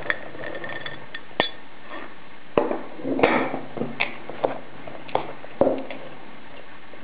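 A fork stirring raisins into a crumbly cereal-and-flour mix in a bowl, making a series of irregular clinks and knocks against the bowl with scraping in between.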